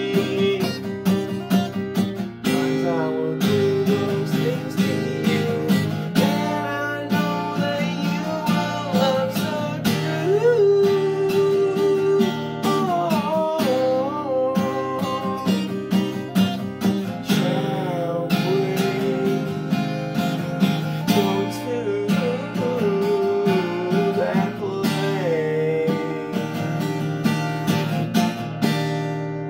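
Acoustic guitar being strummed in a steady rhythm while a man sings along with it.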